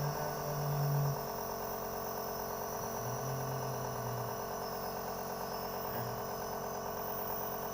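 Electric compressor nebulizer running steadily, its pump giving an even buzzing hum with a fast regular pulse while it delivers the mist that loosens phlegm. Two short low hums sound over it, one at the start and one around three seconds in.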